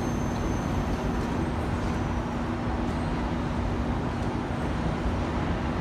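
Steady hum of an E353 series electric express train standing at the platform with its doors shut, ready to depart: an even rumble with one steady low tone.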